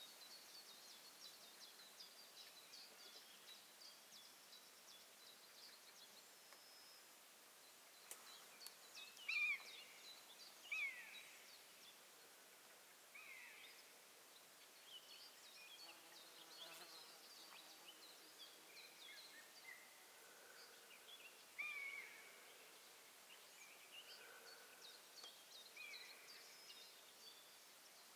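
Faint birdsong from several birds: scattered high chirps and short whistles, with a few louder down-slurred calls about a third of the way in and again later.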